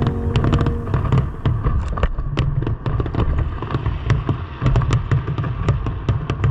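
Aerial fireworks going off in a rapid barrage: many sharp bangs and crackles, several a second, over a deep rumble from the shell bursts.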